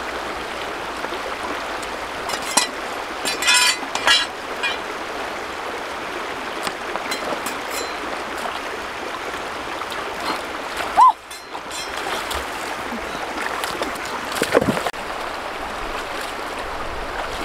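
Shallow stream running over rocks, a steady rush of water, with a few splashes and knocks of stepping in the water a few seconds in and a short sharp sound about eleven seconds in.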